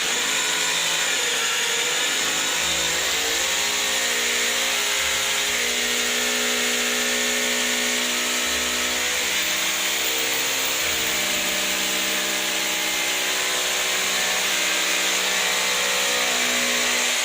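JCB Plus JKD 3200 SDS rotary hammer drilling in hammer mode, its motor and hammer action running loud and steady, with the motor pitch shifting slightly partway through.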